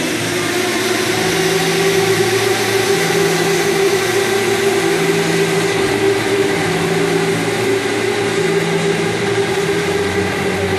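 Electric go-kart motors whining as the karts lap the track, a steady hum with a lower tone pulsing on and off in an even rhythm.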